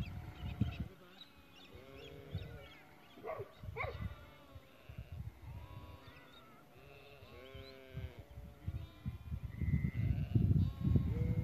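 A flock of sheep or goats bleating, many short overlapping calls one after another as a dog works them. A low rumbling noise comes near the start and again near the end.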